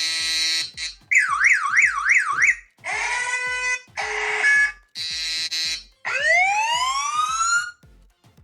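Alarm tones of a phone anti-theft alarm app previewed one after another, each a second or so long: a steady buzz, a siren warbling up and down about three times a second, two steady horn-like tones, the buzz again, and a long rising siren sweep. A faint music beat runs underneath.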